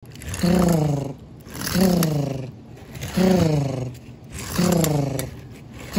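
Race cars zooming past one after another, four passes about 1.4 s apart. Each pass is a rising rush that turns into an engine note falling in pitch as the car goes by.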